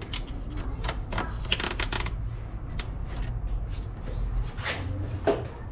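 Nylon zip tie being pulled tight around a wire, its ratchet clicking in quick runs, with a few sharper handling clicks near the end.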